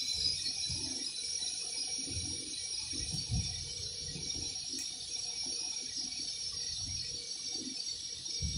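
Electric welding arc on stainless steel pipe, burning steadily with an even hiss, with soft irregular low rumbles underneath.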